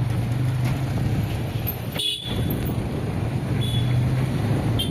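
Busy city street traffic: vehicle engines running with a steady low hum, and several short, high horn toots from vehicles around, one about two seconds in and more near the end.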